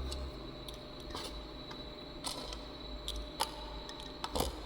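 Light, scattered clicks and taps of roasted cloves being tipped into a mortar (imam dasta), about half a dozen, the loudest cluster near the end.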